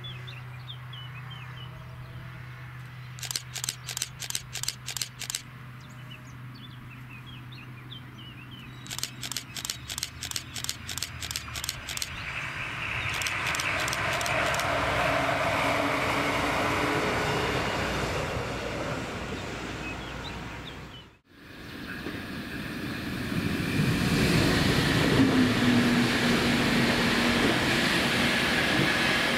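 A DB class 628 diesel railcar approaches with a low, steady engine drone, broken twice by a run of rapid, even clicks, then passes with its diesel engine and wheels on the rails building to a loud rumble. After an abrupt cut, a second diesel multiple unit passes loudly, its engine running with a steady drone under the noise of the wheels.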